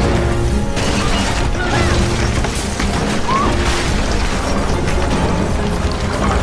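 Film soundtrack mix: dramatic music over a heavy, continuous low rumble with booms and crashes, and a few brief high cries.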